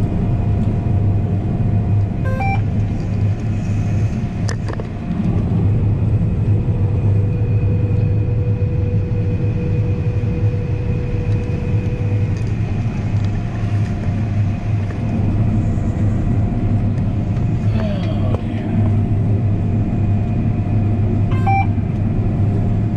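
Harvest machinery running steadily: a deep, constant engine hum with a few steady whining tones over it. A few light clicks come at about 2.5, 4.7, 18 and 21.5 seconds.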